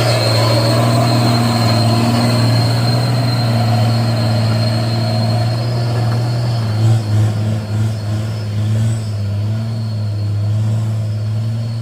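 Diesel truck engine idling with a steady deep hum that wavers briefly about seven seconds in, under a thin steady high-pitched whine.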